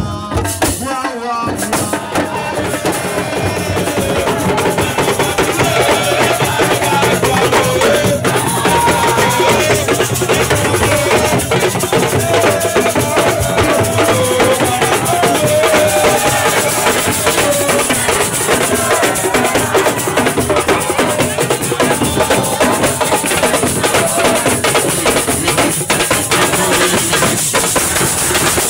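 Music driven by steady, dense drumming and percussion, with a melody line above it.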